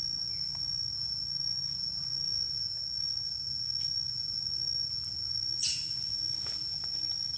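An insect trilling steadily in one high, unbroken tone, with a low rumble beneath and a brief click about five and a half seconds in.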